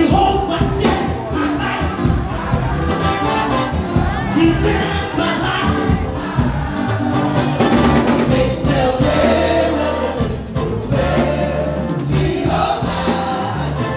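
Live gospel worship music: several voices singing together over a band, with held bass notes underneath.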